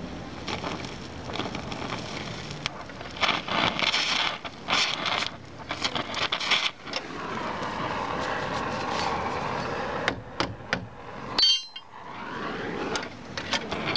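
Oxyacetylene torch flame hissing and crackling as filler rod is welded into a car's running board, with irregular sharp pops and clicks, thickest through the middle.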